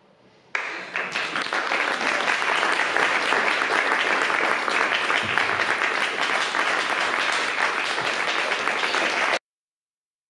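Audience applauding: dense clapping that starts suddenly about half a second in, holds steady, and cuts off abruptly near the end.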